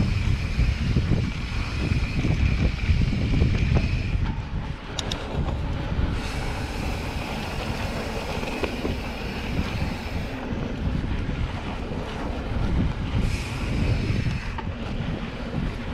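Mountain bike descending a dirt singletrack at speed: wind buffeting the microphone and tyres rumbling over the dirt, with a faint high hum that comes and goes and a few light clicks about five seconds in.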